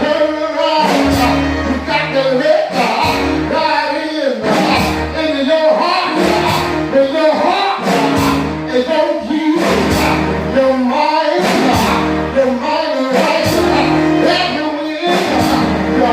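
Live church praise music: singing over a band with a bass line and a steady drum beat.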